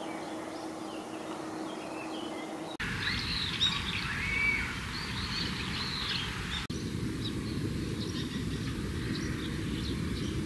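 Wild birds chirping and calling over a steady outdoor background hiss. The calls are sparse at first and thickest in the middle, and the background changes abruptly twice, about three and seven seconds in.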